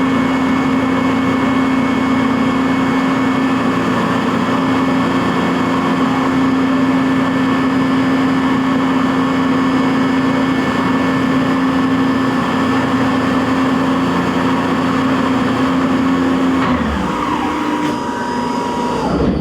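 CNC vertical milling machine spindle running steadily at one pitch while milling Delrin. About 17 seconds in, the pitch falls as the spindle slows. A higher tone holds briefly, and near the end the sound drops again as the spindle winds down.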